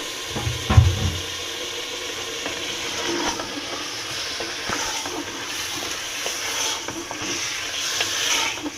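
Mutton liver going into a pot of hot masala, with a dull thump just under a second in, then a steady sizzle and scattered clicks of a spoon stirring against the pot.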